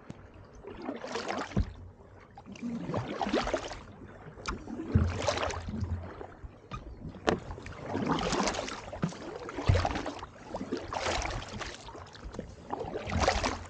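Kayak paddle strokes in icy water: about six swishing splashes, one every two to three seconds, with a few sharp little knocks in between.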